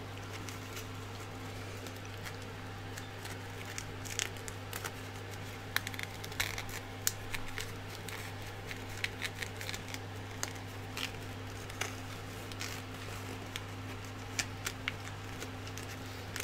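Scattered small clicks and rustles of electrical wires being pushed into a black braided textile cable sleeve by hand, over a steady low hum.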